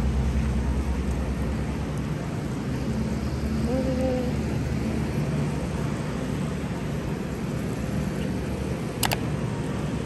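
Steady outdoor background noise with a low hum underneath. A short chirp comes about four seconds in and a single sharp click near the end.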